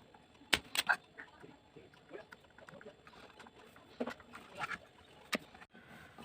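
A few scattered light clicks and taps of hand tools working on a circuit board while an amplifier IC is desoldered.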